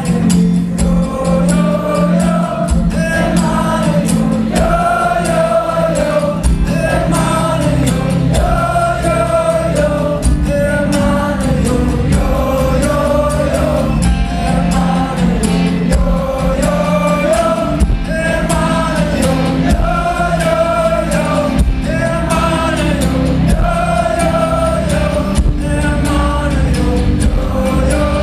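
Live acoustic folk-rock music: a wordless sung phrase that rises and falls, repeated every couple of seconds over a steady low drone and a beat.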